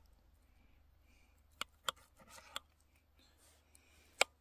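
Knife and fork clicking and scraping against a pan while cutting food: two sharp clicks about a second and a half in, a little soft scraping after them, and a louder click near the end.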